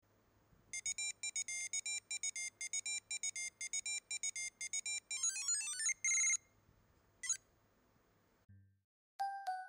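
Electronic intro jingle: a fast run of short, high beeps, about five a second, then a rising sweep into a brief held tone and a single blip. A few chimes start near the end.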